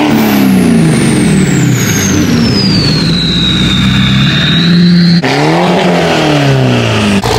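Diesel pickup engine revving and pulling away, with a high turbo whistle that falls steadily in pitch. After an abrupt cut about five seconds in, another engine revs up and down several times.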